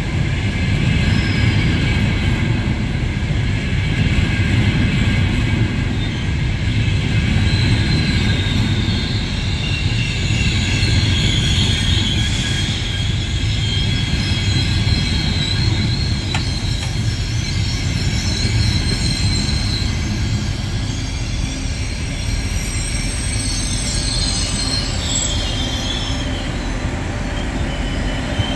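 Frecciarossa high-speed electric train rolling slowly past and gathering speed, with a steady low rumble of wheels on rails. Thin high-pitched wheel squeals come and go over the rumble.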